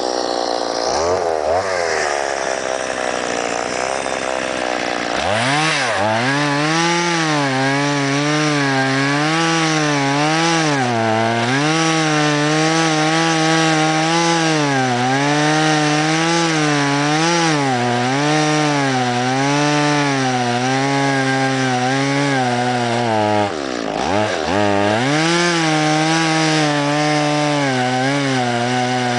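Stihl MS 170 two-stroke chainsaw, a new saw still being broken in, running at high revs while cutting alder logs; its pitch keeps dipping and recovering as the chain bites into the wood. It revs up sharply about five seconds in, and near the end drops off briefly and revs back up.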